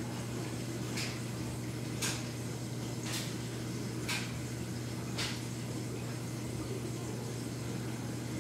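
Steady low hum and water noise from a running reef aquarium's equipment, with a soft hissing splash about once a second for the first five seconds.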